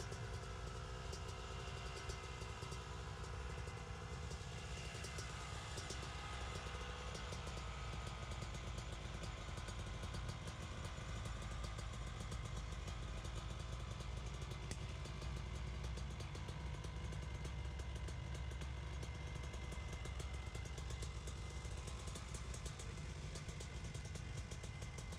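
Two-stroke dirt bike engine running steadily at idle, with a fast crackle of exhaust pulses.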